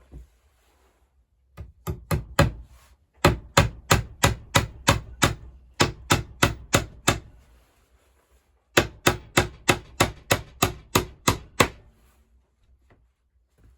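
Rapid, evenly paced sharp knocks, about four a second, in three runs with short pauses between them, the longest run in the middle.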